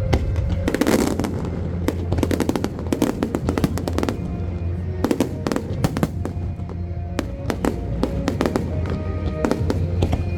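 Aerial fireworks going off in rapid, irregular succession, many sharp bangs and crackles, over loud music with a heavy bass.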